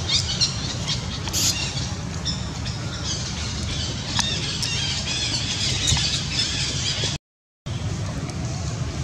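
Baby macaque crying in repeated high-pitched squeals, over a steady low rumble. The sound drops out for half a second about seven seconds in.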